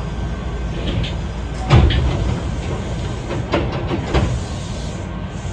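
Hankyu 8300 series electric train standing at a platform, a steady low hum and rumble, with a few short knocks and clicks, the loudest just under two seconds in and two more around three and a half and four seconds.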